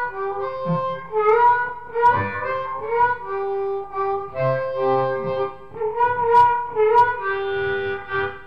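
Diatonic harmonica in C playing a blues melody, with held notes and short pitch slides between them.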